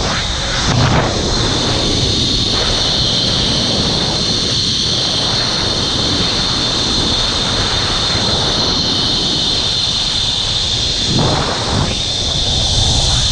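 Zip line trolley pulleys running along the steel cable, a steady high whine, with wind rushing over the camera microphone.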